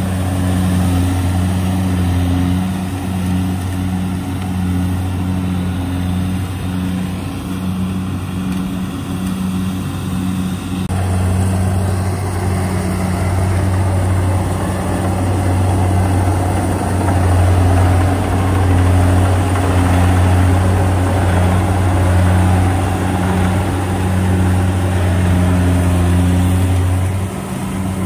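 Kubota combine harvester's diesel engine running steadily as the machine cuts rice, a continuous low mechanical hum. The sound changes abruptly about eleven seconds in.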